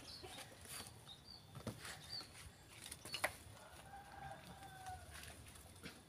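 Faint rooster crowing, one held call lasting just over a second a little past the middle. A few short high chirps and scattered light taps are heard around it.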